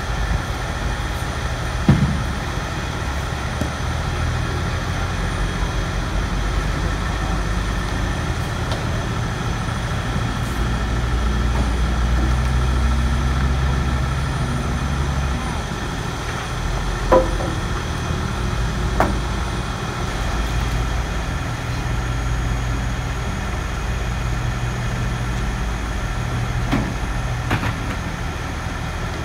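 Engines of heavy work vehicles running steadily, their low rumble rising and falling in steps. A few sharp knocks sound about two seconds in, twice midway and once near the end.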